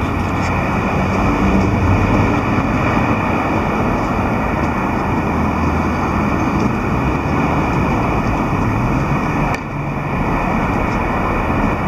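Steady city street noise with road traffic, and wind rumbling unevenly on the microphone. It drops briefly about nine and a half seconds in.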